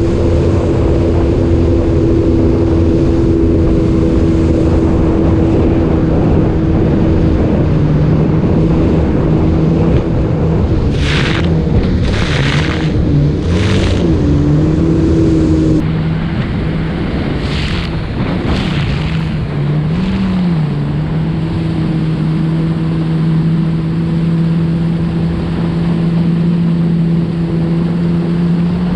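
Yamaha WaveRunner personal watercraft running at cruising speed: a steady engine drone over rushing water and spray, with the pitch briefly dipping twice as the throttle eases. A few short bursts of spray hiss come through the middle.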